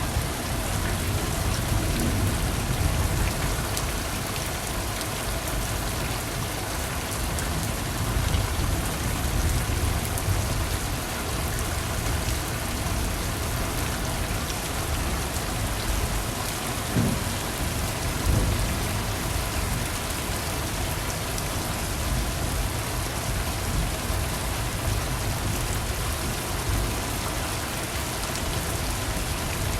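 Steady rain falling, a dense even hiss of raindrops with a low rumble underneath.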